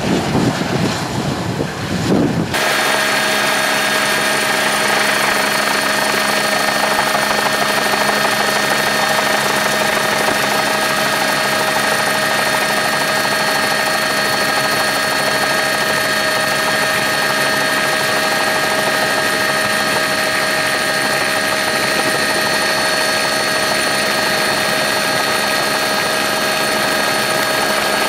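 Wind buffeting the microphone at first. From about two and a half seconds in, the steady whine and rotor noise of a helicopter's turbine engine, heard from on board, with several constant tones over a loud, even rush.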